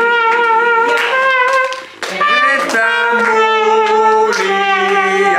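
Trumpet playing a slow tune in long held notes, with a brief break about two seconds in.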